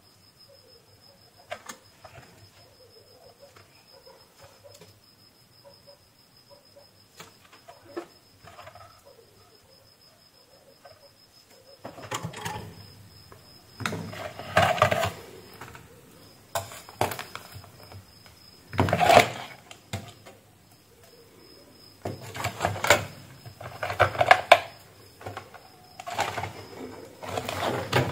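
Plastic LED ceiling-light housing and its LED plate being handled and turned over, rattling and scraping. This comes in a series of loud bursts of about a second each through the second half, after a quiet stretch of faint clicks.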